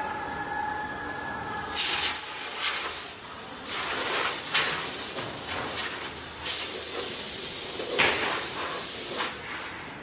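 A loud, steady hiss that starts about two seconds in, breaks off briefly, then runs on until near the end.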